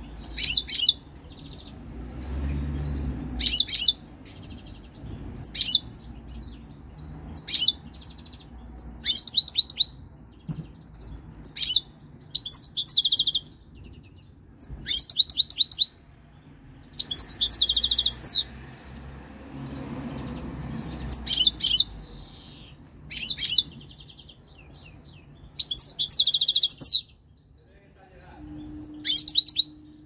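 European goldfinch singing: short phrases of quick, high twittering notes every second or two, with brief pauses between, a few phrases longer and buzzier. The song of a three-year-old bird coming into breeding condition.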